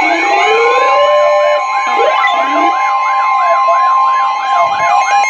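Emergency alert siren sounds: a fast siren sweeping up and down about two and a half times a second, with slower rising wails layered over it and a steady two-note alert tone held underneath.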